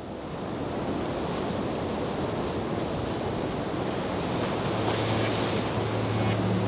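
A rushing noise like surf that fades in and keeps swelling slowly. A low steady drone joins about four and a half seconds in.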